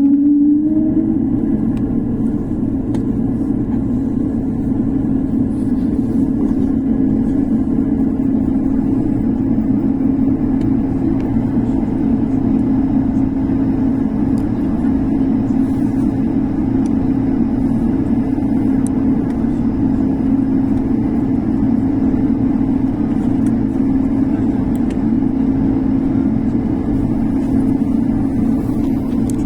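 Airliner cabin noise with the jet engines running: a steady drone with a strong hum and an even rush of noise, unchanging throughout.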